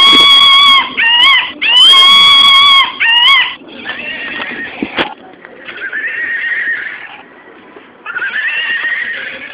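Novelty noise-making keychain playing its sound effects: first a few loud, steady held electronic tones, then quieter animal-call noises with a wavering pitch in two bursts near the end.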